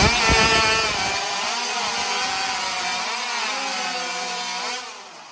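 Several hot saws, heavily modified racing chainsaws, running flat out as they cut through logs at once, their pitch wavering as the chains bite into the wood. The sound falls away sharply near the end as the cuts finish.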